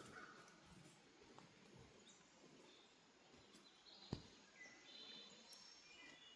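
Near silence with faint outdoor background noise and a few faint, high bird chirps in the second half. A single sharp click about four seconds in.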